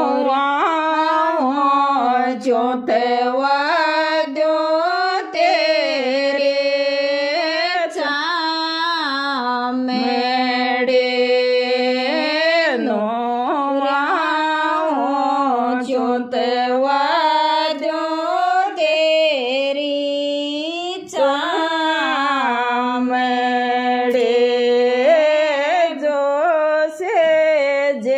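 A woman singing a Tejaji devotional folk song, one voice drawing out long, wavering held notes with ornamented bends.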